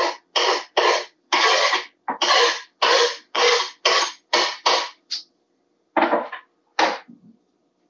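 Kitchen knife scraping chopped cilantro off a wooden cutting board into a bowl: a quick run of about a dozen short scrapes, two or three a second, stopping about five seconds in, then two more short scrapes near the end.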